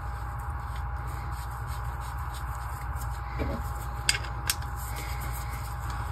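Light handling noise of a steel bolt being worked through a 3D-printed plastic press arm and pivot, with two small clicks about four seconds in, over a steady background hum and hiss.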